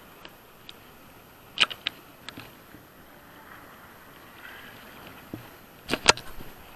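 Shallow sea water sloshing around a large fish being released by hand. There are brief sharp splashes about a second and a half in and again near the end.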